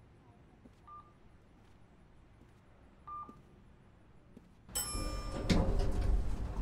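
Two short electronic beeps about two seconds apart. Then, near the end, an elevator's arrival chime rings out, followed by the loud low rumble of the elevator and its sliding doors opening.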